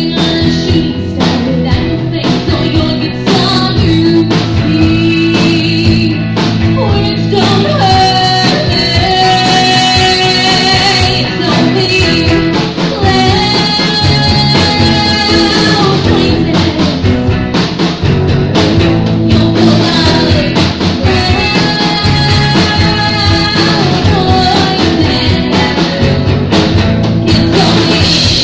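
Loud live rock music from a band, guitar and drums under long held melody notes.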